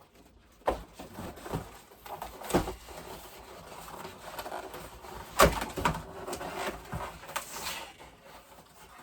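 Ring light kit parts and packaging being handled: scattered knocks and clatter as pieces are moved and set down, with rustling between. The loudest knock comes about five and a half seconds in.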